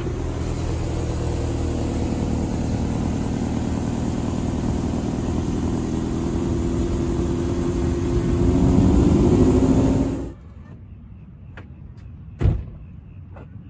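Toyota MR2's turbocharged 3S-GTE four-cylinder engine running steadily, then revving up over its last couple of seconds before cutting off suddenly about ten seconds in. A single thump follows about two seconds later.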